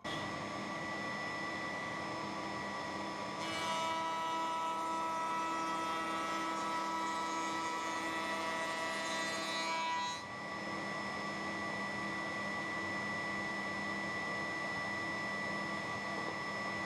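Power saw motor running steadily with a fixed hum and whine while plywood blades are trimmed to size. It gets louder and rougher from about three and a half to ten seconds in.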